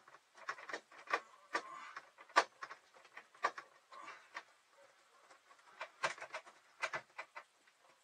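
Irregular sharp clicks and light scraping of a hand screwdriver working at a screw in an RV window valance, with a quick cluster of clicks a little before the end. The Phillips bit is not quite the right one for the screw.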